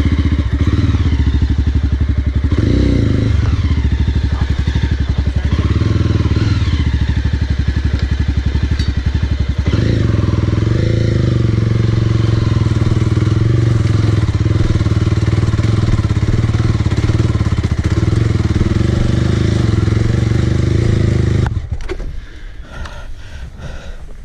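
Off-road motorcycle engine running hard at high revs under load, its note settling steadier about ten seconds in, then cutting off near the end.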